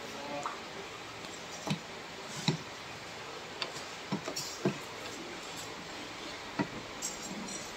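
Irregular sharp metallic clicks and taps from an adjustable wrench and brass valve fittings being handled and fitted, spaced a fraction of a second to about a second apart, over a steady low room hiss.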